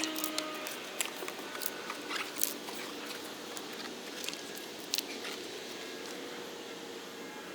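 Irregular small clicks and taps of a plastic LED headlight bulb and its housing being handled and worked apart, over a steady background hiss.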